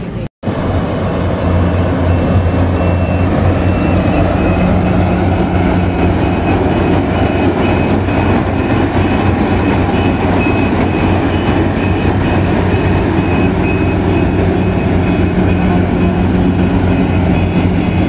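Yanmar AW70 combine harvester running steadily while harvesting: a loud, even engine and machinery drone with a deep hum. It breaks off for a moment right at the start.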